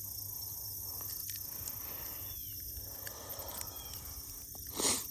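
Steady chorus of insects, with a few faint short chirps. A brief rush of noise sounds near the end.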